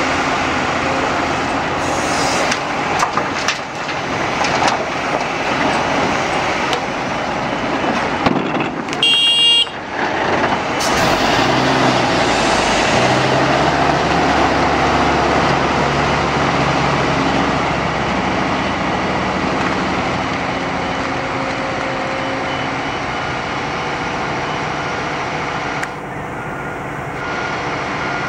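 Liebherr 946 hydraulic excavator's diesel engine working under load as it swings and dumps soil into a tipper truck, with knocks and rattles of bucket and earth in the first few seconds. A brief high-pitched tone sounds about nine seconds in.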